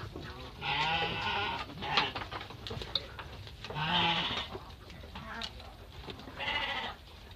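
Garut sheep bleating three times, each a wavering call under a second long, the last one shortest. A brief sharp click comes about two seconds in.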